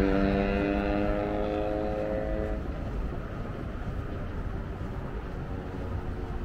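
Street traffic: a motor vehicle's engine rises in pitch, holds a steady note for about two and a half seconds, then fades, over a constant low traffic rumble.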